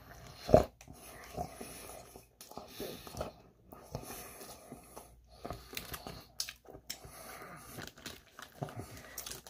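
Close-miked eating of a sesame-bun burger: one loud bite about half a second in, then irregular soft chewing and mouth clicks, with light crinkling of the paper wrapper.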